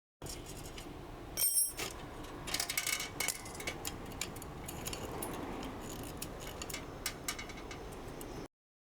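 Metal hand tools clicking and clinking against a bicycle's rear axle and drum brake hardware as the parts are taken off. There are many small irregular clicks and one louder, ringing metal clink about a second and a half in.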